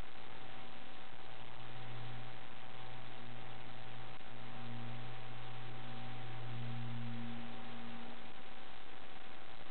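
Steady recording hiss with a thin, constant high tone and a low electrical-sounding hum that swells and fades several times, loudest about seven seconds in; no other distinct sound.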